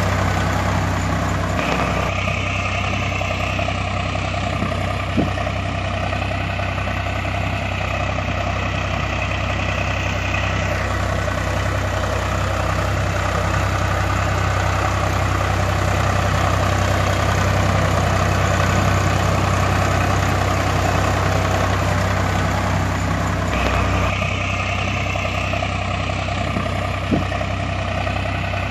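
Heavy diesel engine running steadily at idle, with a low, evenly pulsing hum. The same stretch of sound repeats after about twenty seconds, like a looped engine recording.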